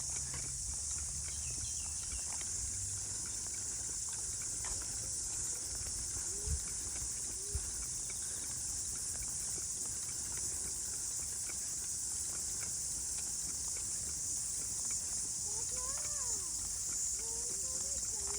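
Steady high-pitched chorus of insects over a low rumble, with two short thumps around the middle.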